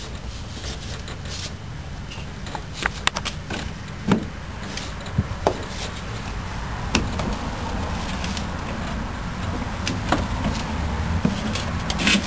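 Scattered knocks and clatter from a plastic ride-on toy car as a toddler shifts about in it and climbs out, a cluster of them about three seconds in. Underneath is a steady low rumble.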